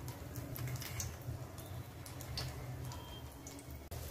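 Vermicelli-coated chicken cutlets deep-frying in hot oil: a faint sizzle with scattered small pops and crackles, over a steady low hum.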